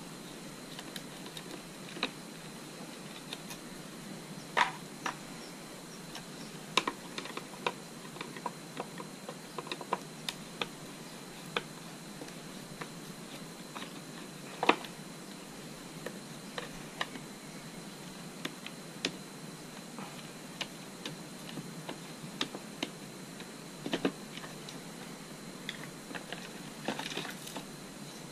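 Scattered light clicks and taps of hands working small parts in a motorcycle's electrical bay: a Phillips screwdriver on the screws that hold the stock TCI ignition unit, and plastic wiring connectors being handled. They come over a faint steady hiss.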